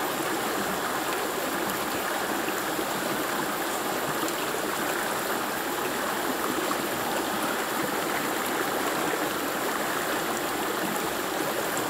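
Shallow rocky stream flowing, a steady rush of water over stones.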